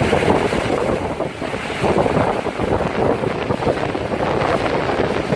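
Ocean surf crashing and washing against rocky sea cliffs: a loud, continuous churning rush that swells and eases, with wind buffeting the microphone.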